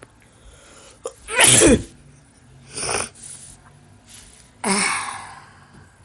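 A man sneezing: a loud sneeze about a second and a half in, then two more bursts, a short one near three seconds and a longer one near five seconds that starts sharply and fades out.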